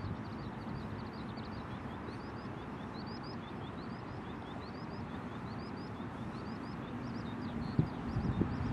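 Eurasian skylark singing: a continuous rapid run of short, high, rising chirps over a steady low rushing background. A few dull knocks come near the end.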